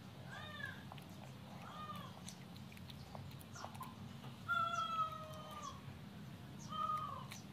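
Four short, high animal calls, each a pitched cry that bends in pitch, the longest and loudest about four and a half seconds in, over a low steady hum.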